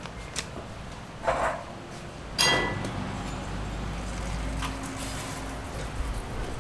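Low background of a small restaurant with a steady low rumble, a short noise about a second in and a sharp ringing clink about two and a half seconds in.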